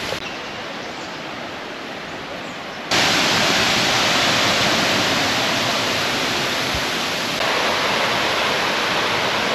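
Rushing water of a tiered waterfall, a steady even noise that jumps abruptly louder about three seconds in and shifts slightly again near the end.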